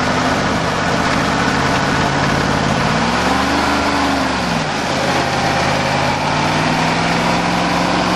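Ford F-250's diesel engine running at a steady speed, revving up once about three seconds in and dropping back down, then holding a slightly higher speed.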